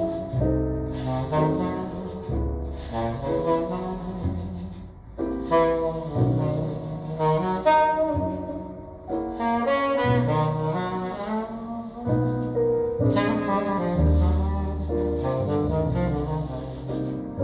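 Recorded jazz with a wind-instrument lead over a walking bass line, played back through a replica Western Electric 22A horn loudspeaker system with bass horns.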